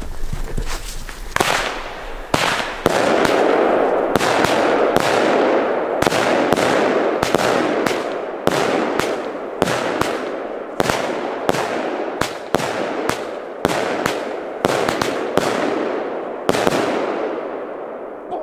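Small firework battery (cake) firing a rapid, irregular series of sharp bangs, about two a second, with a hissing, crackling rush between the shots. The shots thin out and the hiss fades near the end.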